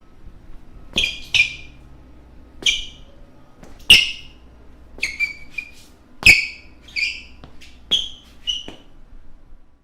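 Basketball shoe soles squeaking on a hardwood court: about a dozen short, sharp, high-pitched squeaks at irregular intervals.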